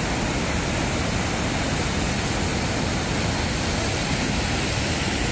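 Water cascading steadily over the stepped weir of an artificial urban stream: a loud, even rushing noise.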